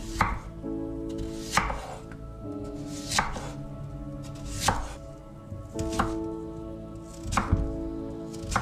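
A knife chopping vegetables on a cutting board, one slow, even stroke about every one and a half seconds, over background music with sustained chords.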